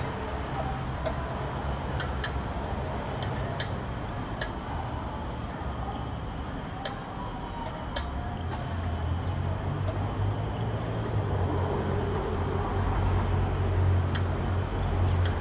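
Steady low rumble of road traffic, swelling louder in the second half as heavy vehicles pass, with a few sharp clicks scattered through.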